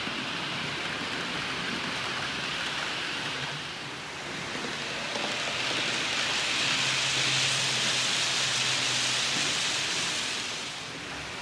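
Model trains running on metal track: a steady rushing hiss of wheels rolling over the rails. It swells from about five seconds in, with a low motor hum, as a locomotive passes close, then drops away near the end.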